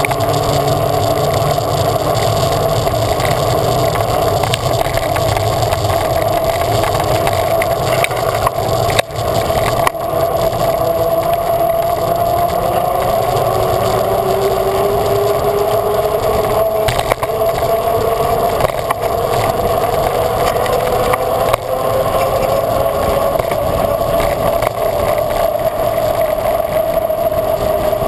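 Tyres rolling on wet tarmac with wind rushing over the microphone, a steady hum under it and a second hum rising slowly in pitch over the second half as speed builds. Two brief knocks come about nine seconds in.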